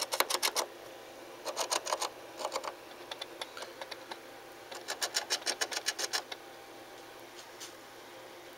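An animal scratching and digging inside a wall, in bursts of rapid scraping strokes: one at the start, another about two seconds in, and a longer run from about five to six seconds in, with a few faint single scratches between.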